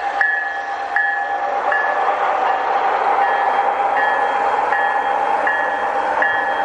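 Diesel locomotive sound effects from QSI DCC sound decoders in brass Union Pacific DD35 model locomotives, played through small onboard speakers: a steady diesel engine sound with a locomotive bell striking about four times every three seconds.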